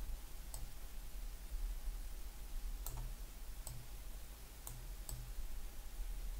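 Five scattered computer mouse clicks, short and sharp, over a faint steady low hum.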